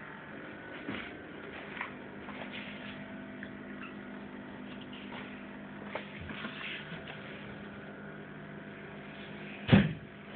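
Steady background hum with a few faint clicks, and one loud knock near the end.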